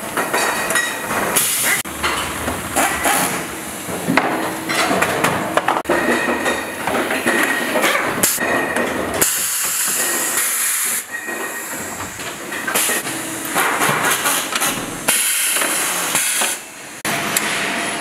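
Factory floor noise in a small-motor plant: a hiss that is strongest in the highs, with scattered clicks and knocks of metal motor parts being handled. The mix changes abruptly several times.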